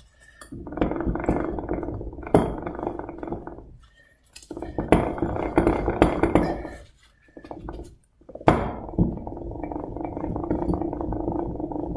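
Front wheel hub assembly of a 2003 Ford Excursion spun by hand three times, each spin starting with a knock and running on as a steady, rough hum with metallic clinking from the wheel bearing. The bearing sounds "not too great": it is worn.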